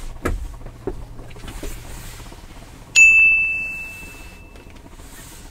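A single bright ding, a chime sound effect, about three seconds in, ringing and fading away over a second or two. Before it, a few faint knocks over a low steady hum.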